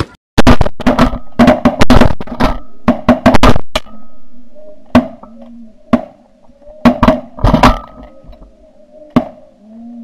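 Volley of shotgun blasts from several hunters, fired in quick succession for the first few seconds, then single shots about a second or two apart. Snow geese honk between the shots.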